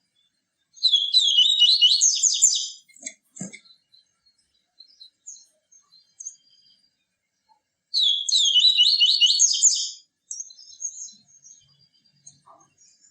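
A papa-capim seedeater singing its 'tui tui viviti' song: two loud, fast, high-pitched trilled phrases about seven seconds apart, each lasting about two seconds, with faint chips between them.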